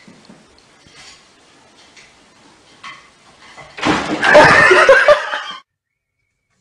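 A sudden loud crash and clatter about four seconds in, with people's voices yelling or laughing over it, lasting about a second and a half and then cutting off abruptly.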